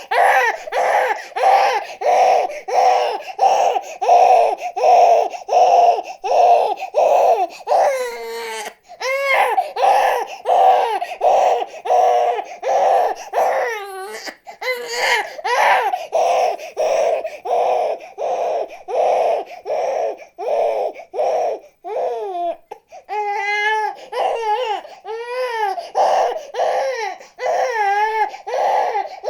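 Infant crying hard: rapid short rhythmic cries about two a second, broken a few times by longer wavering wails.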